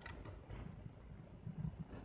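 Olympus PEN EE-3 film-advance thumbwheel giving a last ratchet click just at the start as it is wound, then soft handling noise from gloved hands on the camera body.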